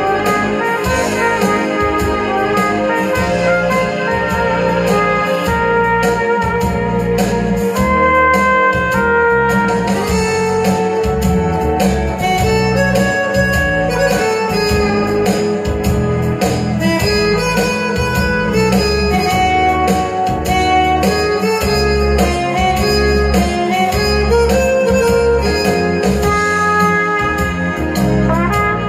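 Trumpet playing a melody over a recorded backing track with guitar. Partway through, the trumpet rests for a stretch while the backing track carries on, then comes back in near the end.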